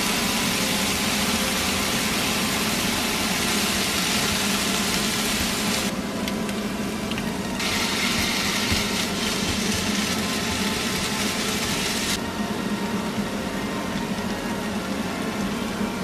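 Chopped onion, garlic chives and minced chicken sizzling in oil in a frying pan, over a steady low hum. The sizzle dips briefly about six seconds in and drops off about twelve seconds in.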